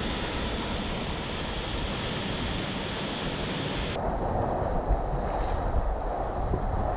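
Sea surf washing over and breaking against rocks, with wind buffeting the microphone. About four seconds in the sound changes from an even hiss to a lower, heavier rush.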